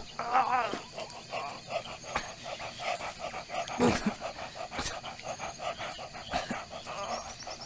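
A man groaning in pain, with ragged, uneven breaths between the groans.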